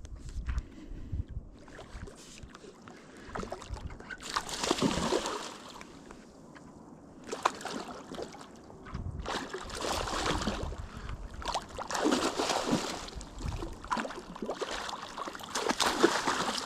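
Water sloshing and splashing in repeated swells, about one every two to three seconds.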